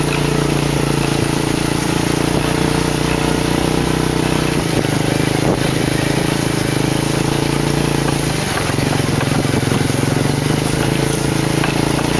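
Motorcycle engine of a remork-moto, a motorcycle towing a passenger carriage, running steadily while riding along, with road and wind noise; the engine note shifts a couple of times.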